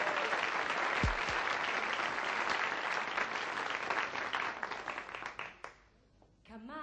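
Audience applauding, the clapping thinning out and stopping about five and a half seconds in. There is a low thump about a second in.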